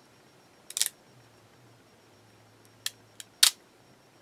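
A few short, crisp clicks and crackles from the clear plastic carrier sheet of a rub-on transfer as fingers peel it up and press it back down. There is a small cluster just before a second in and three more near the end, the last the loudest.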